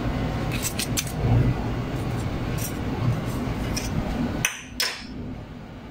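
A few light clinks of a plastic spoon against a ceramic bowl as potato slices are pushed around and levelled, over a steady low hum that drops away near the end.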